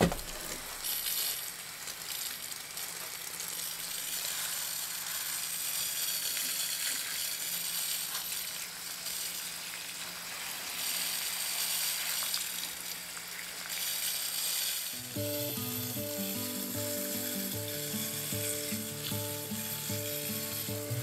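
Water hissing steadily from the shower-rose head of a watering wand as it sprays over potted flowers. Soft background music comes in about three-quarters of the way through.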